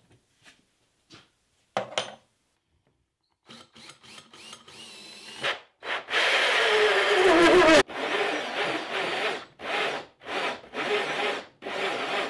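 Cordless drill driving a large hole saw through plywood. A sharp knock comes about two seconds in. From about six seconds the drill runs in one long cut, its pitch falling as the saw loads up, then stops and goes on in a series of short bursts.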